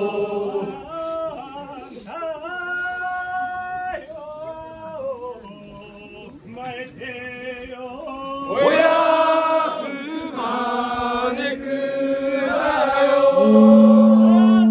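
Men chanting in long, drawn-out notes that bend in pitch at their starts and ends. The chant grows louder about halfway through and ends on a strong, steady low note held for about a second and a half.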